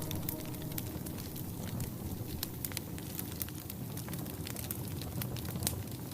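Wood fire in a fireplace crackling: irregular sharp pops and snaps over a low steady hiss.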